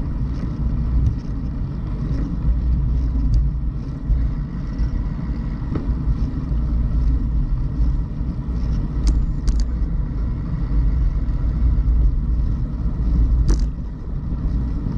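Wind buffeting the microphone and a tyre rolling on asphalt while riding along, a steady low rumble. A few sharp clicks come about nine seconds in and again about thirteen seconds in.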